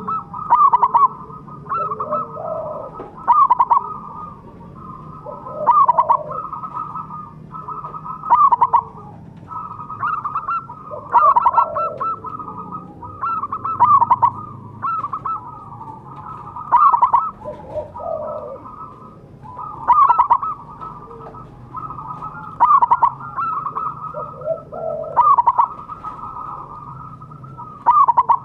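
Zebra dove (perkutut) cooing: a loud phrase of quick staccato notes repeated about every two to three seconds.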